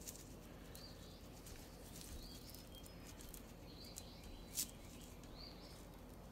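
Faint short chirps repeating about every second and a half, with a single sharp click about four and a half seconds in.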